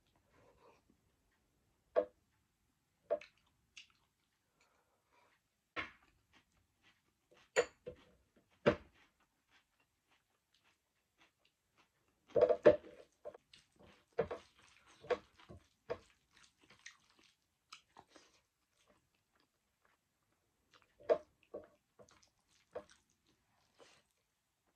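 Close-up eating sounds: chewing and wet mouth smacks as rice, dal and pork are eaten by hand, in scattered short clicks. About halfway, a quick cluster of louder knocks and scrapes as a red plastic bowl is tipped out over a ceramic plate.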